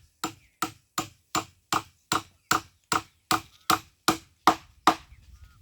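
Hammer driving a nail into the wooden bench: thirteen sharp, evenly spaced blows, a little under three a second, that stop near the end.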